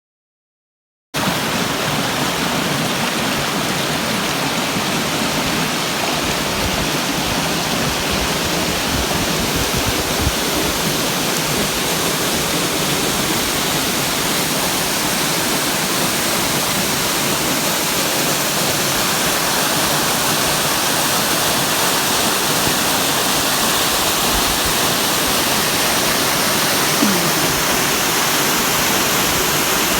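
Waterfall: water falling and rushing in a steady, even roar that cuts in abruptly about a second in.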